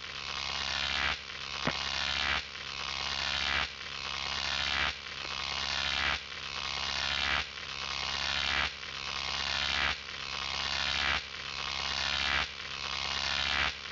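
A harsh buzz over a steady low hum, swelling and cutting off in an even cycle about every 1.2 seconds.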